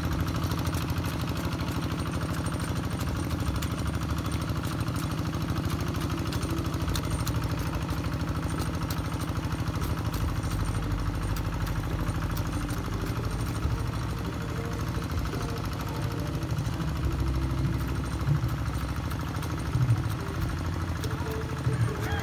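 Kubota single-cylinder diesel engine of a two-wheel hand tractor running steadily under load as it plows a flooded rice paddy.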